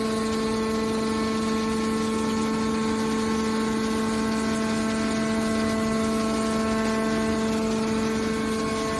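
Hydraulic baling press's pump running with a steady whine at one constant pitch.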